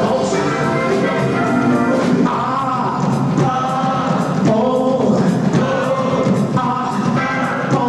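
A live band playing an oldies rock and roll number, with several voices singing together over the instruments.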